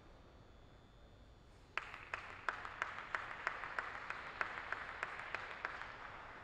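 A small audience applauding, starting a little under two seconds in. One clapper stands out with loud, even claps about three a second over the softer patter of the rest. The applause fades toward the end.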